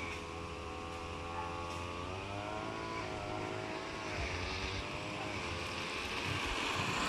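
A motor engine running steadily, its pitch drifting slowly down and up a couple of times.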